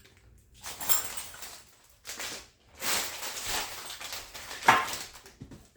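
Packaging and parts being handled during an unboxing: several stretches of rustling and scraping, with one sharp knock about three-quarters of the way through.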